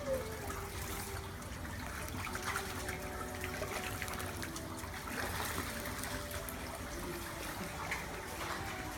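Water running and splashing steadily in a penguin pool, with small splashes and a faint murmur of distant voices behind it.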